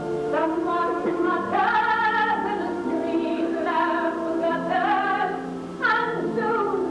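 A woman singing a slow melody in long held notes with vibrato, over sustained orchestral chords: a live stage musical number.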